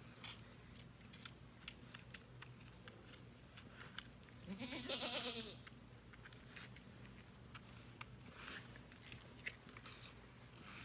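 A goat bleats once, about four seconds in, a call of just over a second that rises at its start. Small wet clicks of a calf sucking on a feeding bottle run through the rest.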